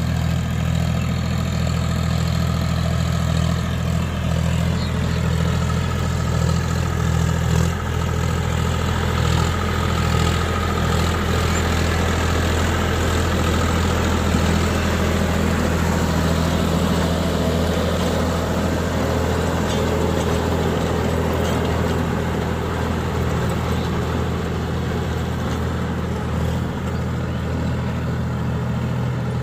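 John Deere 5050D tractor's three-cylinder diesel engine running steadily under load as it drives a rotavator through the soil.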